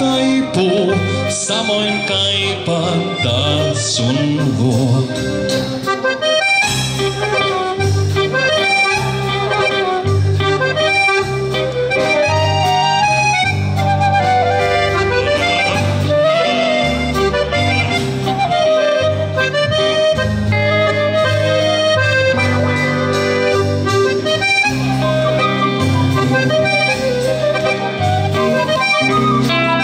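A live dance band playing a waltz, with accordion leading over flute, electric guitar and drums.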